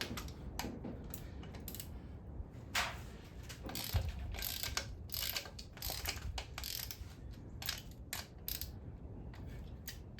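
Hand ratchet clicking in short, uneven strokes as bolts on the front of the engine are loosened, with a dull knock about four seconds in.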